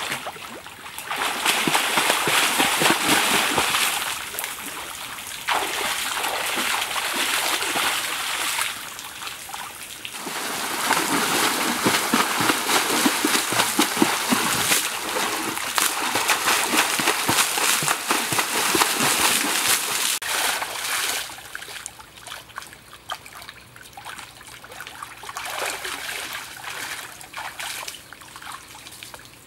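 A person swimming in a small pool, splashing and sloshing the water in three long stretches with brief lulls between. In the last third it dies down to quieter sloshing and trickling.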